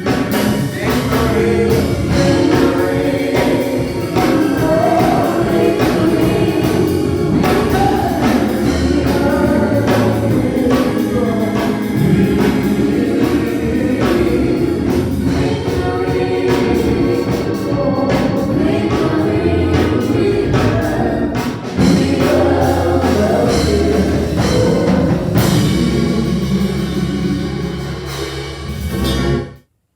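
Gospel choir singing with instrumental backing; the music cuts off suddenly near the end.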